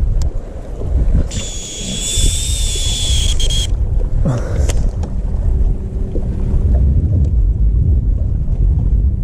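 Heavy wind buffeting the microphone throughout. About a second in, a high, steady whine lasts a little over two seconds, as a fishing reel's spool spins paying out line on a cast, followed by a brief sweeping sound.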